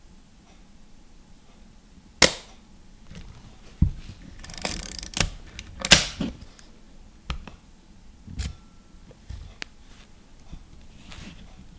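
Leaf shutter of a Rollei 35 S compact camera firing with sharp clicks, once at 1/60 s about two seconds in and again at 1/30 s about six seconds in. Between and after the releases come smaller mechanical clicks from the dial and controls being handled, and a short rasping rattle near the middle as the camera is wound.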